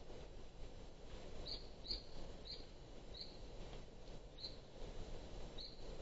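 A small bird calling: six short, high chip notes at irregular intervals, starting about a second and a half in.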